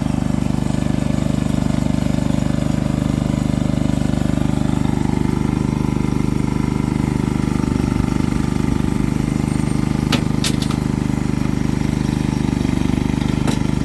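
An engine running steadily at one constant speed, with a couple of sharp clicks about ten seconds in and another near the end.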